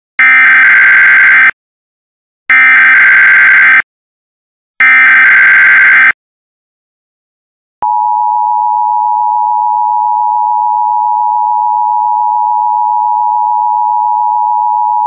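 Emergency Alert System test tones: three short bursts of SAME digital header data, each about a second and a half long with a short gap between. About two seconds after the last burst, the steady two-tone EAS attention signal begins and holds.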